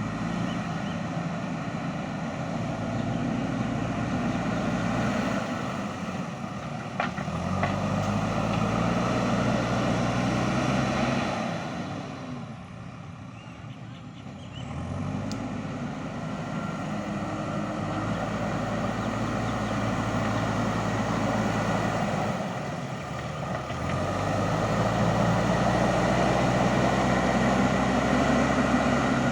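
JCB backhoe loader's diesel engine working under load, revving up about 7, 15 and 24 seconds in and easing off between, with a quieter spell near the middle.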